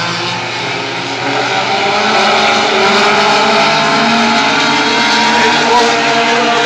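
Several Renegade-class short-track stock car engines running together as the field laps the oval. Their overlapping pitches rise and fall as cars come and go around the track.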